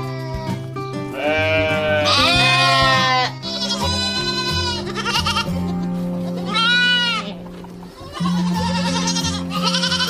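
Lambs and goat kids bleating, a series of separate calls one after another, over background music with long held notes.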